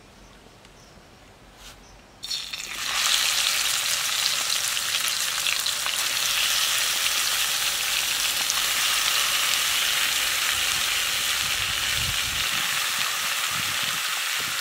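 Taro stolons (kochur loti) and potato, wet with the water that salting drew out of them, tipped into hot mustard oil in a metal wok (kadai): a sudden loud sizzle about two seconds in, settling into a steady hiss of frying.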